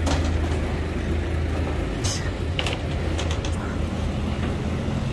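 Steady low rumble of boat engines on the river, with a few short clicks and knocks over it.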